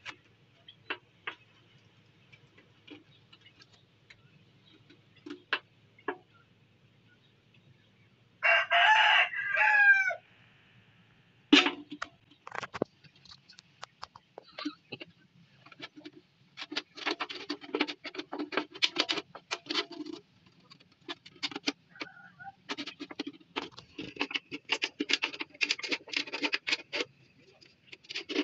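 Scissors cutting through the thin metal of a tin can: scattered single snips, then long runs of rapid crunching clicks in the second half. A rooster crows once about nine seconds in, the loudest sound here.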